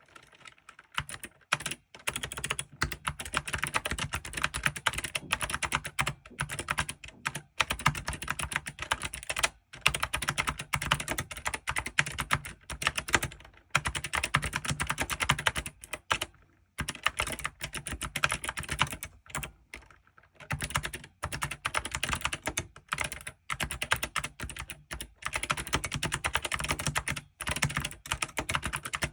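ABKO K660 ARC mechanical keyboard being typed on quickly, its keys clacking in runs of several seconds with short pauses between.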